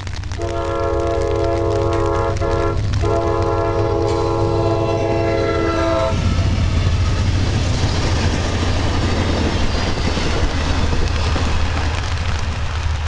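Amtrak GE Genesis diesel locomotive sounding its multi-chime horn for a grade crossing in a long blast, broken twice briefly, that stops about six seconds in. The locomotive and its passenger cars then rush past with a loud rumble and wheel clatter.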